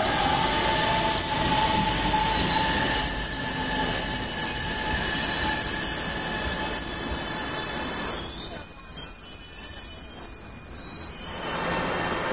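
Metro train's steel wheels squealing on the rails, several high-pitched tones over the rumble of the passing train. The squeal is loudest from about two-thirds of the way in until shortly before the end.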